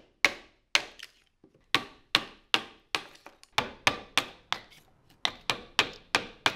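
Steel hammer (gennō) striking the hoop of a Japanese striking chisel (tataki-nomi), driving it into a wooden block to chop a mortise: a run of sharp strikes about three a second, with two brief pauses. The chisel does not so much cut as split the wood ahead of it, like a driven wedge.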